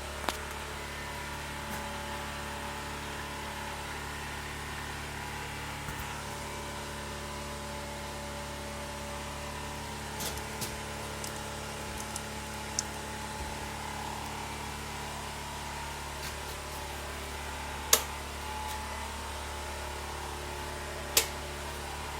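NGF-110 milling machine's motor running steadily on a frequency inverter: a constant hum with steady whining tones. A few sharp clicks break in, two louder ones in the last few seconds.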